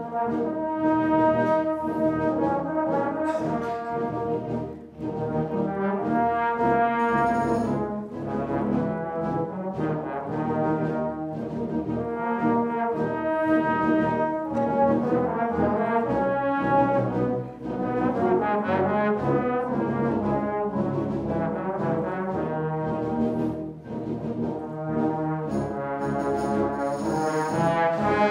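Full concert wind band playing live, with the brass and trombones prominent. Sustained chords move in phrases, with a few brief dips in loudness between them.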